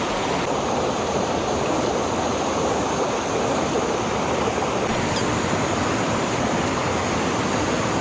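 Small rocky creek rushing over boulders and low cascades, giving a steady, even rush of water.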